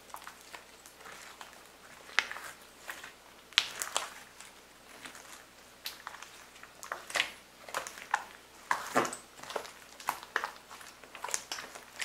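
Glossy turquoise slime being squeezed, stretched and folded by hand: irregular wet squelches and sharp sticky pops. The pops are sharpest about two and three and a half seconds in and come thick and fast in the later half.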